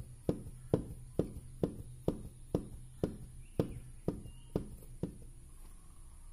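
Honda Beat drive-shaft bearing knocking in its crankcase bearing seat, about two even clacks a second, stopping about five seconds in. The knock is the 'glek glek' of a bearing boss worn too loose, which the mechanic puts down to running short of oil.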